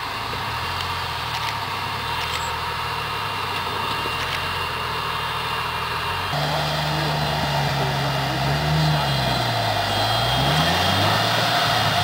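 Jeep Wrangler's engine running at low revs as it crawls over boulders. In the second half the revs rise, fall and rise again as the throttle is worked.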